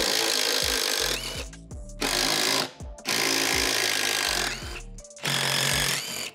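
Cordless impact wrench hammering in four short runs as it spins out the bolts and nuts holding a car's plastic underbody trim panel, the motor winding down after each run.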